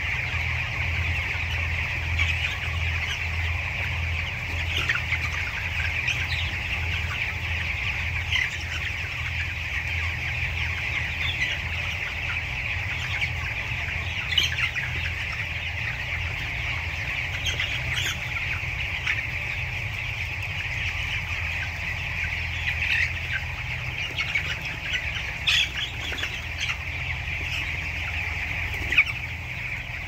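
A large flock of young white broiler chickens calling together in a dense, steady chorus, with a few sharper individual calls standing out now and then. A steady low hum runs underneath.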